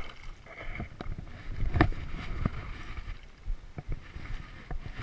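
Water splashing and sloshing close to the microphone, with irregular knocks and handling bumps, the sharpest about two seconds in, as a hooked fish is pulled in and landed.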